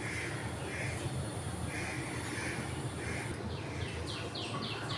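Birds calling: a string of short harsh calls, then a fast run of about five downward-sweeping chirps near the end, over a steady low hum.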